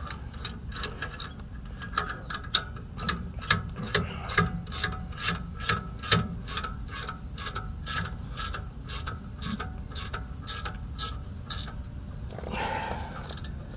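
Ratcheting box-end wrench clicking in quick, even runs as it is swung back and forth on an 18 mm brake caliper bracket bolt, tightening it. The clicks stop near the end.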